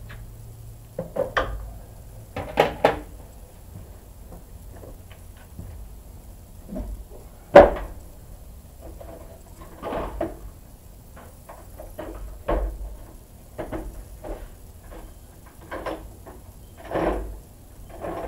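Hand tools and metal parts being handled: irregular clinks and knocks, the sharpest about seven and a half seconds in.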